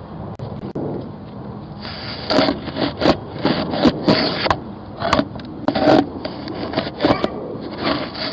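Goat rubbing and nosing against a doorbell camera right at its microphone, making irregular scrapes and knocks that start about two seconds in.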